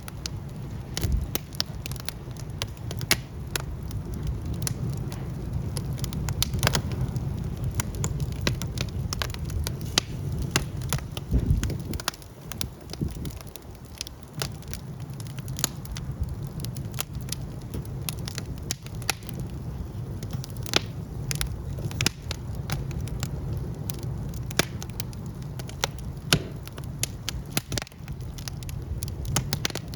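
Wood fire burning, with irregular sharp crackles and pops over a steady low rumble of the flames.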